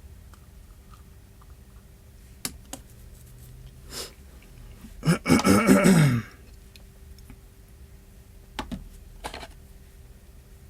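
A few light clicks and taps from small work on a phone. About five seconds in, a man makes a loud throaty vocal sound lasting about a second and falling in pitch.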